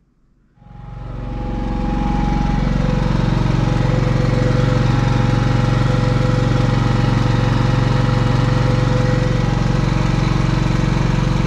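Genmax GM10500iETC tri-fuel inverter generator's 458 cc four-stroke engine running steadily on natural gas: a loud, even drone with a couple of steady whining tones over it. It fades in over the first second or two.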